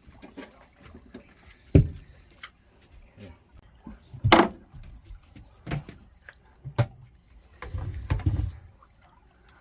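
Irregular knocks and thumps from handling a small striped bass aboard a boat: a heavy thump about two seconds in, a louder sharp burst a little before the midpoint, and a quick rattle of knocks near the end.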